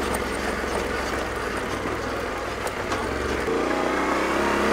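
Trail motorcycle engine running steadily in a low gear as the bike is ridden along a dirt track, with a steady low drone. About three and a half seconds in, the engine note changes and a clearer tone comes in.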